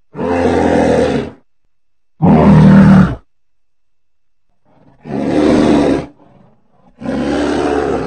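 Roar sound effects made for the extinct short-faced bear Arctodus: four separate roars of about a second each, the second the loudest, with short silences between them.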